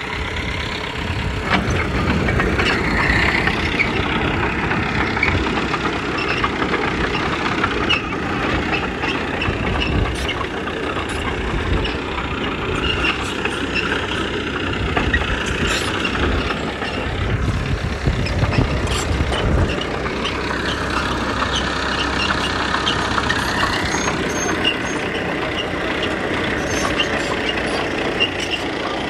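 Heavy diesel earthmoving machinery running steadily under load, with knocking and rattling over the engine. About two-thirds through, a high squeal holds for a few seconds and rises as it ends.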